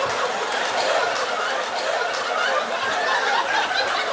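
Live audience laughing: many overlapping laughs forming a steady wash.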